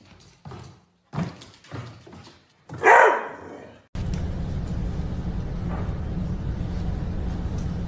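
A dog gives a few short sounds, then one loud bark about three seconds in. A steady low hum with hiss takes over from about four seconds.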